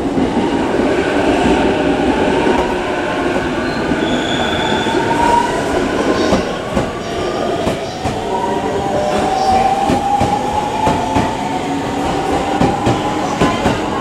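JR East 209 series 3100 electric train pulling away from the platform: its inverter-driven traction motors whine in rising tones as it speeds up, the pitch climbing twice. In the second half, wheels click over rail joints more and more often.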